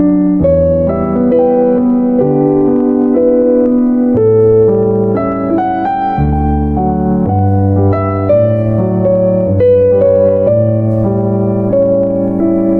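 Slow, gentle piano music, with sustained chords and a melody moving note by note over a bass line.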